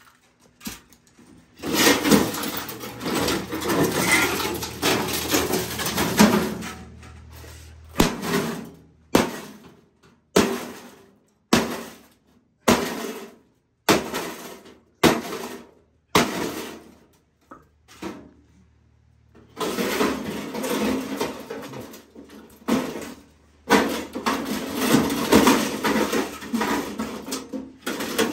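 A microwave oven being smashed apart: a series of separate sharp blows about a second apart through the middle, with denser stretches of clattering and breaking parts at the start and near the end.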